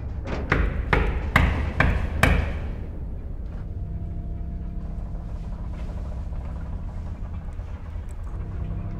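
Knocking on a door: about six hard knocks, roughly half a second apart, in the first two and a half seconds. A low steady drone follows.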